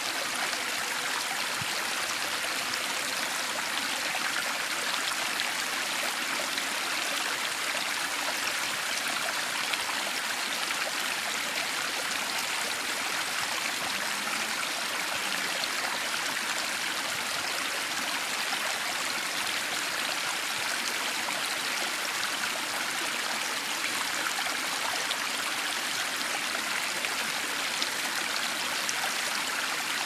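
Small forest stream splashing over mossy rocks in a low cascade: a steady, unbroken rush and trickle of water.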